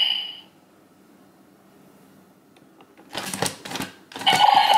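DX Rube Gyro transformation toy: its electronic sound effect dies away, and after a quiet stretch come two quick runs of plastic clicking and rattling as the toy's side grips are worked. About four seconds in, its electronic sound effect starts up loudly again.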